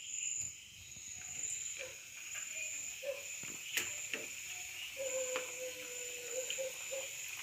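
Small pieces of pal cake dough frying in hot oil in a steel kadai: a steady soft sizzle, with a few light clicks.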